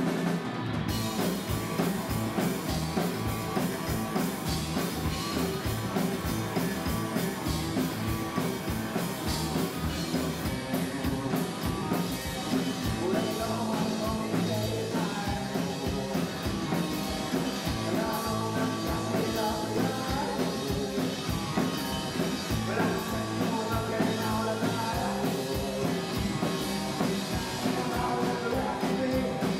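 Live rock and roll band playing a song: upright double bass, drum kit and electric guitar, with a sung vocal.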